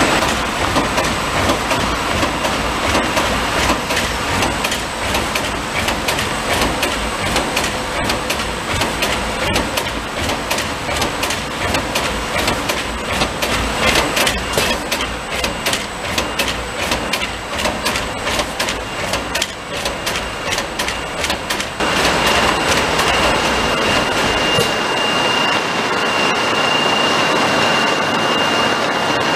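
Shrink-wrap packaging machine with a flighted infeed and film sealer running continuously, its conveyors and sealing mechanism clattering with dense rapid clicks. About three quarters of the way through, the sound changes to a steadier hiss with a thin high whine.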